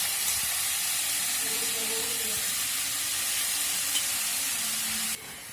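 Marinated chicken pieces frying in hot oil in a kadai: a steady sizzle that cuts off abruptly near the end.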